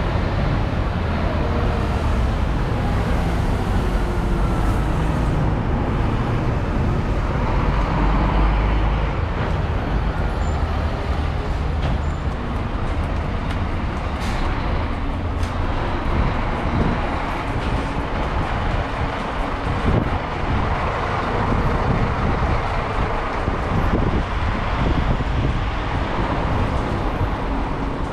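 Street traffic: a continuous rumble of passing vehicles, heaviest about eight seconds in.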